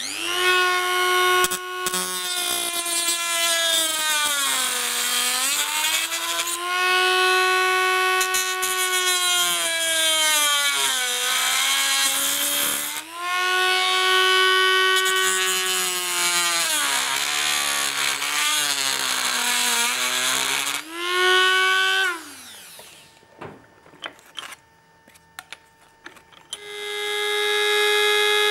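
Dremel-type rotary tool with a diamond abrasive cutting disc whining as it cuts acrylic tube; its pitch sags each time the disc is loaded in the cut and recovers between strokes. About 22 seconds in it is switched off and its pitch falls as it winds down, with a few clicks after. Near the end it starts again and runs at a steady, higher pitch.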